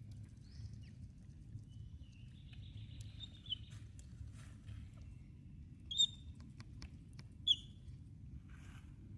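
Baby monkey giving three short, high squeaks, each dropping in pitch at the end, over a low steady rumble and faint rustling clicks.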